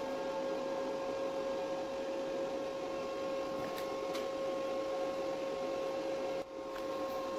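Steady hum and whine of an idling welding machine, its tone unchanged throughout, with a brief drop in level about six and a half seconds in.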